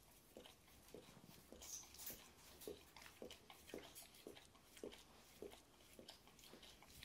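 Golden retriever mother mouthing and nibbling her 9-week-old puppy in play, heard faintly: soft short grunts about twice a second with small mouth clicks and chewing noises.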